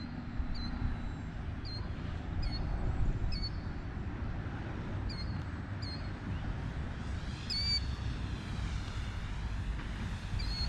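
Small battery-powered RC plane's electric motor and propeller buzzing overhead, its pitch wavering up and down in the last few seconds as the plane turns and passes. Under it, a low rumble of wind on the microphone, with short high chirps repeating every half second or so.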